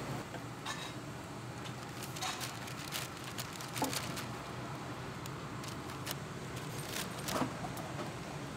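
Scattered light clicks and clinks of bamboo skewers and metal against stainless steel trays and bowls as grilled skewers are handled and bagged, over a steady low hum; the loudest clinks come about four seconds in and near the end.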